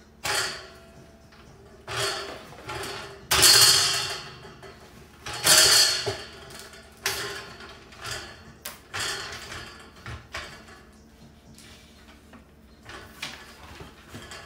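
Steel frame parts of a kitchen storage cart scraping and rattling in a series of short bursts as they are handled during assembly, the loudest a little over three seconds in and again near the middle.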